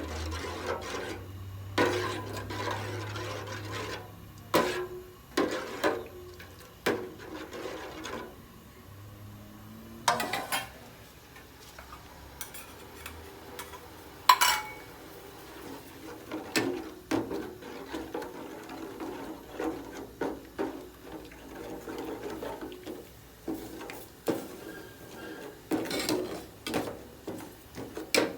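Spoon and utensils clinking, knocking and scraping against a cooking pot as the porridge is stirred: irregular clinks throughout, with one loud, ringing clink about halfway through.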